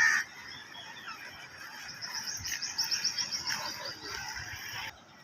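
Birds calling outdoors, with a fast run of high, evenly repeated chirps starting about two seconds in. A brief loud sound at the very start is the loudest moment.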